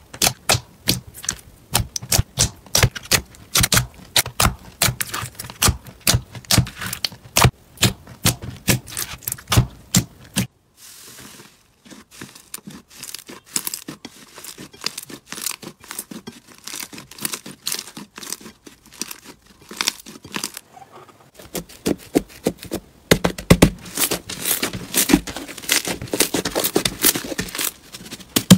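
Hands squishing and stretching slime, giving rapid sticky clicks and pops, thick for the first ten seconds or so. After a short break they come sparser, then thicken again near the end.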